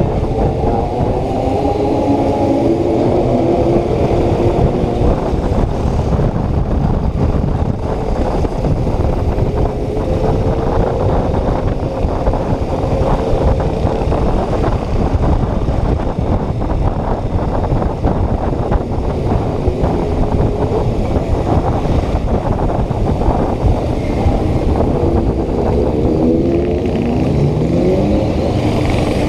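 Yamaha Ténéré 250's single-cylinder engine running under way, over a loud steady rush of noise. The engine pitch rises and falls in the first few seconds and again near the end, as the rider revs and changes speed.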